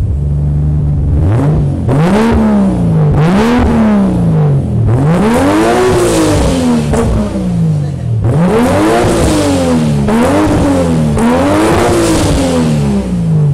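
Nissan Skyline GT-R R34's twin-turbo RB26DETT straight-six, heard at the aftermarket single-exit exhaust tip. It idles, then about a second in is revved about six times in a row, each rev climbing and falling back, before settling toward idle near the end.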